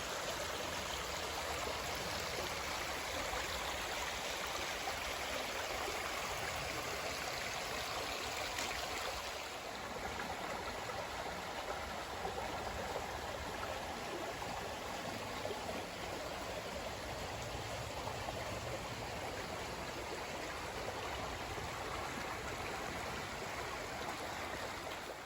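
Creek water running steadily, a continuous rushing that eases off a little about ten seconds in.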